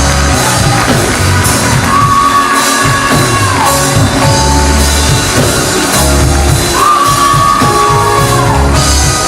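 Live gospel band with singing: bass and drums under a voice that twice holds a long high note and then slides down off it.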